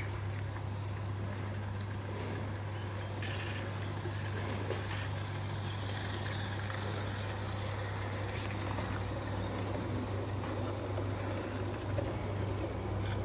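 G-scale model electric railcar running past on garden track towing a small wagon, its motor and wheels on the rails heard over a steady low hum.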